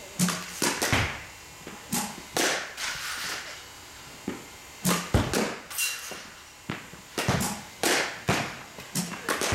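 Softball bats striking balls in indoor batting cages: a run of sharp cracks at irregular intervals, some coming two or three close together.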